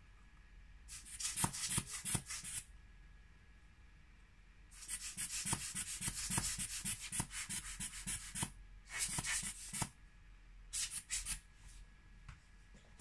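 Quick rubbing strokes on an iPhone's glass screen, a few strokes a second, coming in bursts: a short one about a second in, a long run in the middle, and two shorter ones near the end.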